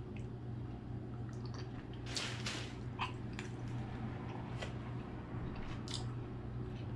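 A man chewing boiled crawfish meat with his mouth close to the microphone: a handful of short, wet smacks and clicks, bunched together about two seconds in and then scattered through the rest, over a steady low hum.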